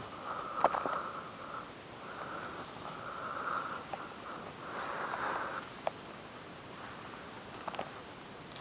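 Repeated sniffing breaths through the nose close to the microphone, each lasting about half a second to a second, with a few soft clicks from gloved hands handling pummelo peel.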